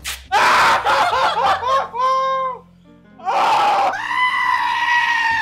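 Two loud yells. The first is a man yelling as a wax strip is ripped from his chest hair. The second, starting about three seconds in, is a goat screaming like a person, held on one pitch for about two seconds before it cuts off sharply.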